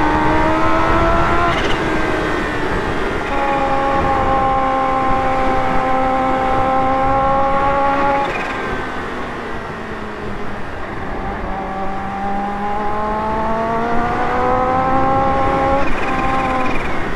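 Kawasaki Ninja H2's supercharged inline-four under way, its note climbing through a gear change about a second and a half in, then holding a long steady pull. About halfway through the revs fall away as the throttle eases off, then climb again, with another shift near the end. Wind rush on the microphone runs underneath.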